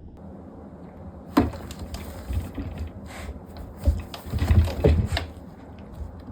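Two house cats scuffling in a fight, with a sharp knock about a second and a half in and a louder flurry of bumps and scrabbling between about four and five seconds in.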